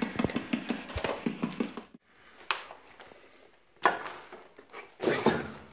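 Footsteps on a rubble-strewn basement floor: three separate steps a little over a second apart in the second half, after a quick run of clicking taps that cuts off about two seconds in.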